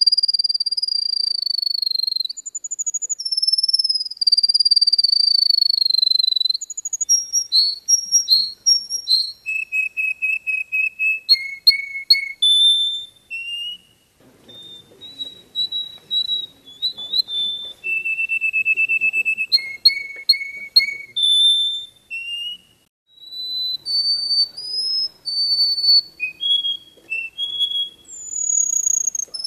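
A small yellow finch sings a long, varied song. It opens with drawn-out whistles sliding down in pitch, then moves to quick runs of repeated notes and short trills, with a couple of brief pauses.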